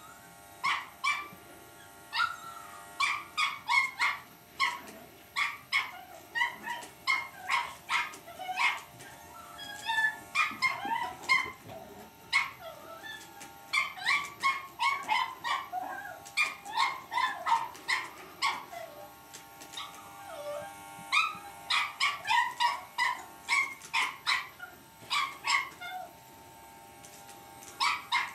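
Cavalier King Charles spaniel puppy yapping and barking in quick runs of high-pitched yips, several a second, with a few short lulls between runs, over a faint steady hum.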